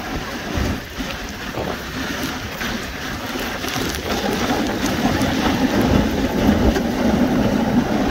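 Dog sled runners hissing and scraping over snow as a husky team pulls the sled, with wind rumbling on the microphone. The scraping grows louder about halfway through.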